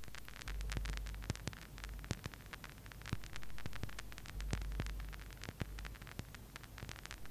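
Crackle and pops of a phonograph record's surface noise, irregular clicks over a faint hiss, with a low hum that swells and fades a few times.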